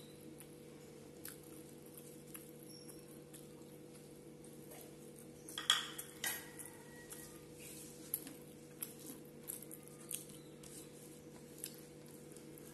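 Faint hand-eating sounds, fingers mixing rice and curry with small mouth smacks, over a steady low hum. A little before halfway there is a short clatter, the loudest sound, as the plate is moved off the banana leaf.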